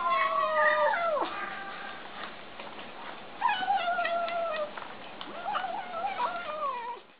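Kittens making drawn-out, falling-pitched mewing cries while eating: three calls, one at the start, one about three and a half seconds in and one near the end, with short clicks in between.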